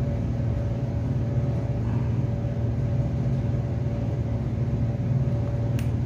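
A steady low machine hum with a few constant tones held above it, even in level throughout. There is a single short click near the end.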